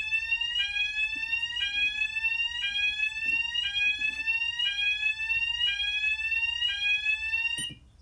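Cooper Fulleon electronic fire alarm sounder going off during a system test, giving a loud rising sweep tone. Each slow upward glide lasts about a second before dropping back, about eight in a row, and it cuts off near the end.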